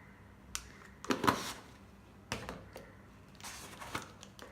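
A spoon scooping powder and knocking against a bowl: several short clicks and scrapes, the loudest about a second in, as spoonfuls of chilli powder go into the bowl.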